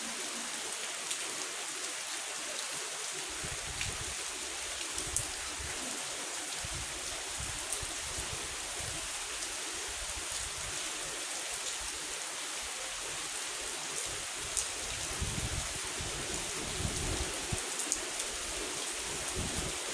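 Steady rain falling: an even hiss with scattered single drops ticking sharply now and then.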